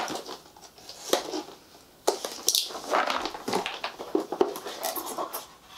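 A cardboard jigsaw puzzle box being opened and its contents handled: irregular crinkling and scraping with sharp clicks, a few at first and then a dense run of them.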